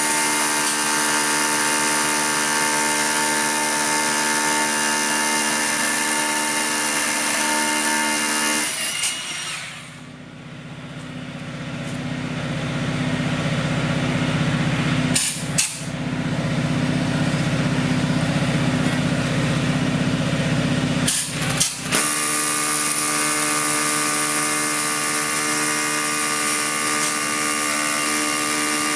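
Steady whine of a power tool's motor during concrete slab lifting work. It cuts out about nine seconds in while a lower hum builds up, with a couple of brief clicks, and the whine comes back about 22 seconds in.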